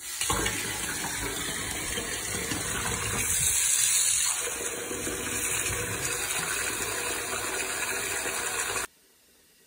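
Bathtub tap running full into a foamy bath, the stream splashing over a bubble bar held under it. The rushing water stops abruptly near the end.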